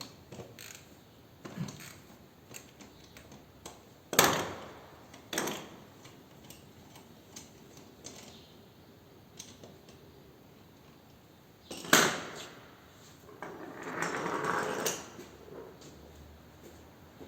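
Hand tools and parts being handled at a motorcycle's rear wheel. A few sharp knocks come about four, five and a half and twelve seconds in, with scattered light clicks between them, and there is about a second and a half of denser handling noise near the end.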